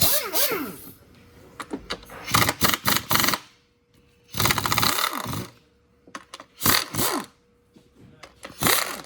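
A handheld power tool running fasteners in about five short bursts, each under a second to about a second long, its whine falling as it spins down after some runs.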